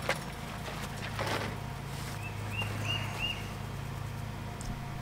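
Small computer fan running with a steady low hum. There is a brief rustle about a second in, and four short high chirps come between two and three and a half seconds in.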